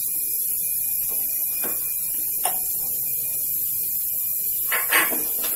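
Milk being poured from a packet into a nonstick kadai, a faint pouring sound in the first couple of seconds. A short knock or rustle comes about five seconds in, over a steady background hiss and hum.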